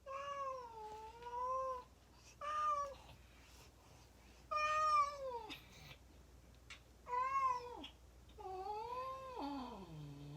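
Cat meowing five times: drawn-out calls that waver and fall in pitch, the last sliding down to a low note near the end.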